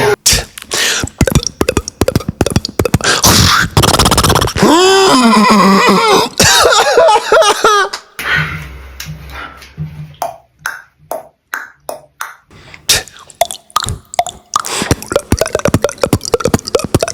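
Beatboxing: one person making sound effects with mouth and voice. A dense stretch with a sliding, pitched vocal sound partway through gives way to a run of separate short clicks and pops, then dense vocal sounds again near the end.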